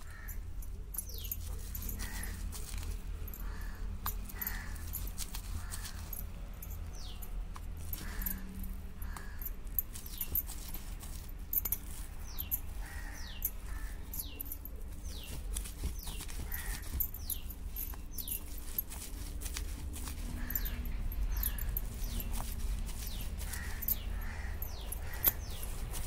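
Stone roller worked back and forth over cooked chana dal on a flat grinding stone, a soft repeated scraping and squashing roughly once a second as the dal is ground into a fine puran paste. Small birds chirp throughout with short falling notes.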